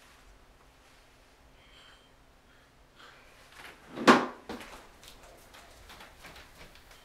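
A wardrobe being shut with one sharp bang about four seconds in, followed by a few light clicks and rustles.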